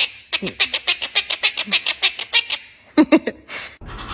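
Pet parrot calling in a rapid run of short calls, about six a second, then two louder calls near the end.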